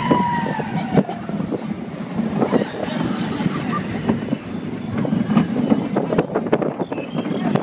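Expedition Everest roller coaster train running along its track, its wheels clattering with many short knocks, with wind buffeting the microphone.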